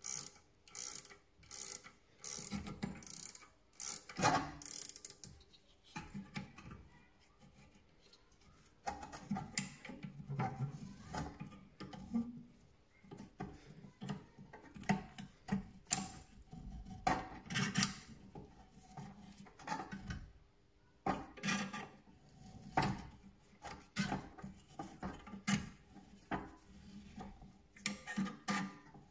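Brake caliper piston wind-back tool being turned with a spanner on a rear brake caliper to push the piston back: repeated short metallic clicks and scrapes from the threaded spindle and wrench, coming in irregular bursts with short pauses.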